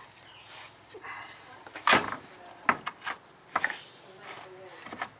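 Several sharp knocks and clicks of metal parts being handled as a control-arm bolt is worked by hand into the steel subframe bracket of a VW Mk2, the loudest about two seconds in and a quick cluster after it.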